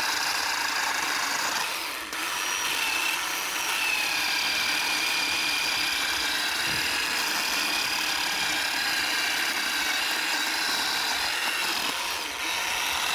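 Worx WG322 20V 10-inch cordless electric chainsaw running steadily with a high motor whine while it cuts through brush and limbs, briefly dipping about two seconds in.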